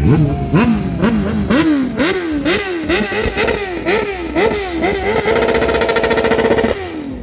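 Stunt motorcycle engine revved in quick throttle blips, about two a second. It is then held at high revs for about a second and a half before dropping back near the end.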